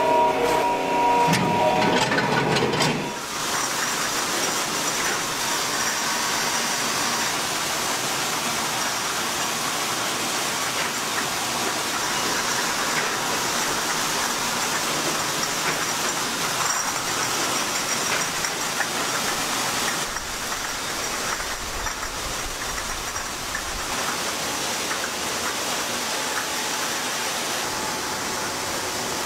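Steady hiss and rumble of bottling-line machinery in a wine factory. In the first few seconds a held tone with several pitches sounds over it, then stops.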